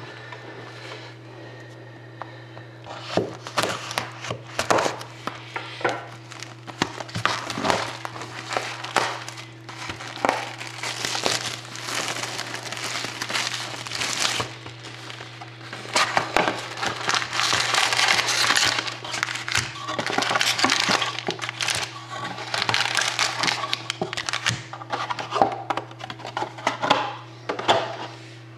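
Cellophane shrink-wrap being torn and crinkled off a hockey card box, with dense, irregular crackling and sharp crinkles starting a few seconds in, over a steady low hum.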